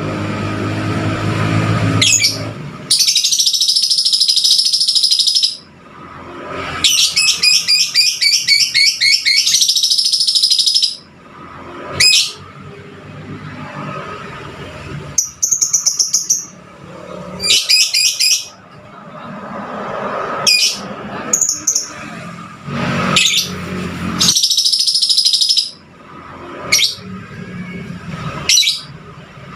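Lovebird singing: shrill, high chirping in long rapid bursts of one to three seconds, with single sharp chirps in between. This is the fighter lovebird song used as a lure to get other lovebirds singing.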